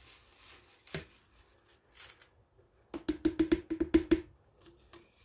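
A plastic blender jar knocked rapidly against a plastic food container, about ten quick knocks in a little over a second, shaking out ground cumin and coriander powder. Before it, a soft rustle of the powder pouring and a single click.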